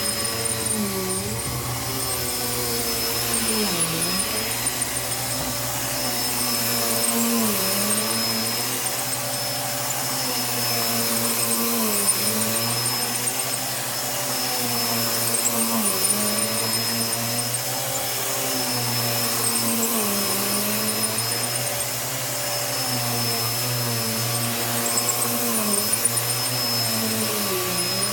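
Bissell vacuum cleaner running while being worked over the back of a thick rug, its motor pitch dipping and rising again about every four seconds with each stroke.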